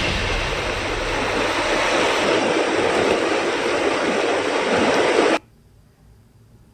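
Steady rushing of a swollen, muddy flood river. It cuts off abruptly a little over five seconds in.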